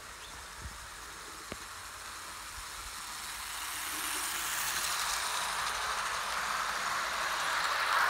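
Model BR 2-8-0 locomotive with eight coaches running on garden-railway track: the steady running noise of its wheels on the rails grows louder from about three seconds in as the train comes close and passes.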